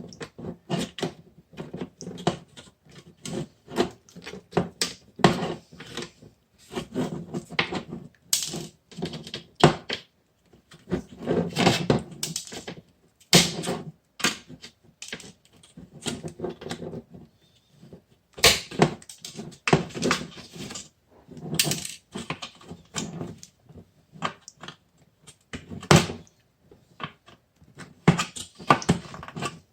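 Wire snippers cutting and cracking away the hard plastic frame of a PC case front panel: a run of irregular sharp snaps, clicks and crunches, bunched in quick clusters with short pauses between.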